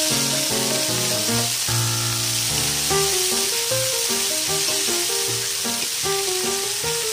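Broccoli florets and fried chopped garlic sizzling in hot oil in a wok as they are stir-fried with a wooden spatula, a steady hiss under background music.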